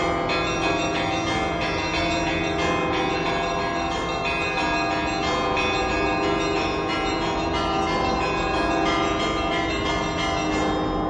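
The bells of St. Isaac's Cathedral are pealing, rung in the Russian Orthodox manner to call people to the evening service. Quick strikes of small high bells sound over the steady ring of deeper bells.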